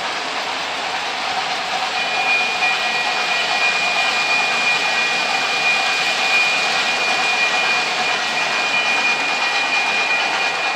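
O gauge model trains rolling along three-rail track, a steady rumble of wheels and running gear. About two seconds in it gets a little louder as a passing locomotive adds a steady high whine that holds to the end.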